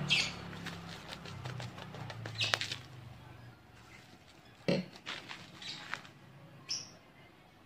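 Bubble-wrap packaging crinkling and rustling in short bursts as it is cut with scissors and peeled off a phone box.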